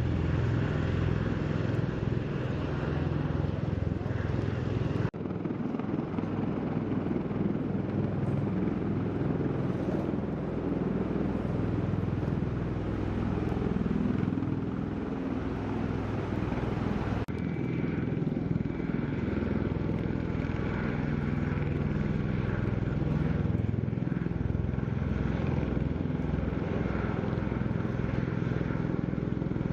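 V-22 Osprey tiltrotor's engines and proprotors running, a steady low throbbing rumble. The sound changes abruptly twice, about five seconds in and again past the halfway point.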